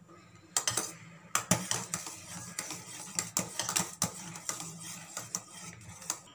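Metal spoon stirring hot milk in a stainless steel pan, clinking and scraping against the pan's bottom and sides in quick, uneven strokes, starting about half a second in.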